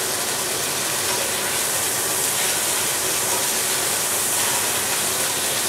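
Thin ribeye steak frying in olive oil in a skillet, a steady sizzle with grease spattering.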